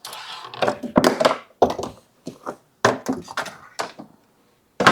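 Kitchen utensils clattering, with a string of sharp knocks and clacks, while someone rummages for a pair of tongs.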